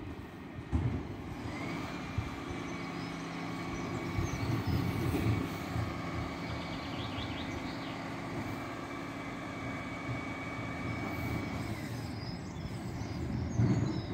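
Refuse collection lorry's diesel engine running, with a steady high whine held for about ten seconds that stops near the end.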